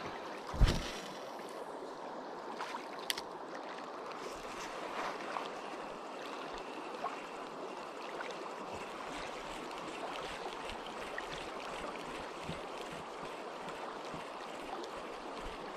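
River water flowing and lapping over gravel shallows at the bank: a steady rushing hiss. There is a single thump about half a second in and a small click a few seconds later.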